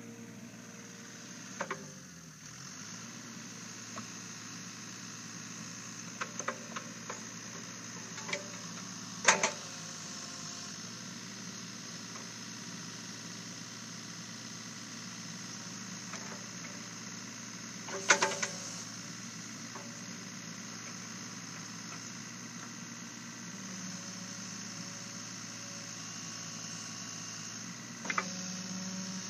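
Takeuchi TB125 mini excavator's diesel engine running steadily while it digs, with short sharp clanks from the bucket and arm every few seconds, loudest about nine and eighteen seconds in.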